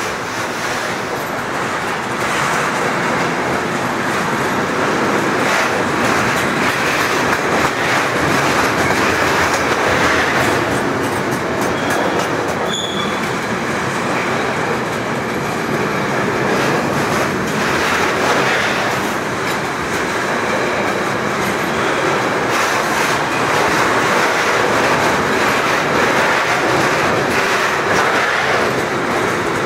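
Loaded wood-chip freight wagons of a long goods train rolling past, a steady rumble with wheels clacking over rail joints and a brief high wheel squeal about halfway through.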